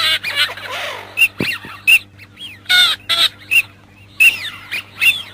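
Eurasian teal (common teal) calling: a quick, irregular series of short, high whistled notes that rise and fall in pitch.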